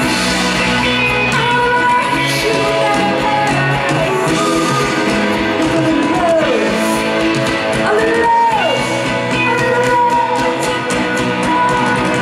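Live pop-rock band playing a song: electric guitars, bass, keyboards and drums, with singing.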